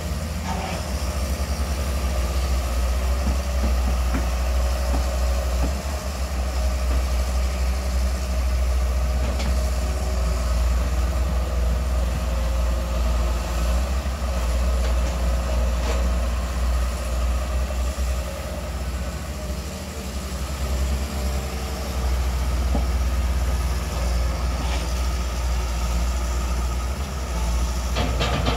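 Long-reach excavator's diesel engine running steadily, a strong low rumble with a faint steady whine above it. A rapid rattling clatter starts near the end.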